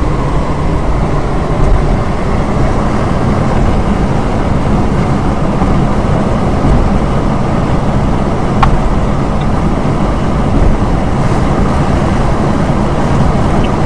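Ford Escort station wagon cruising at highway speed, about 70 mph, heard from inside the cabin: a steady, loud mix of engine, tyre and wind noise.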